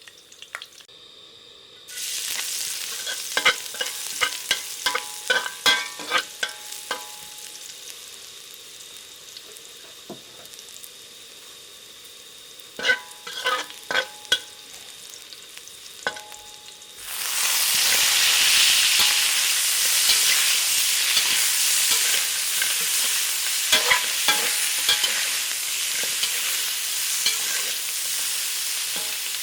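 Chicken stir-frying in a hot pan: sizzling with repeated clicks and scrapes of a utensil stirring against the pan. About two seconds in the sizzling starts, and about 17 seconds in it suddenly gets much louder and stays loud.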